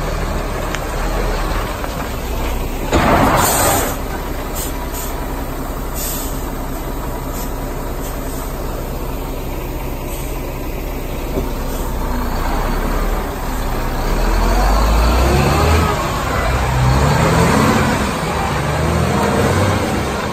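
Diesel engine of a 2015 HOWO 420 hp tractor unit running, with a short sharp hiss of air from the air brakes about three seconds in. From about two-thirds of the way through, the engine's pitch rises and falls several times as the truck is driven.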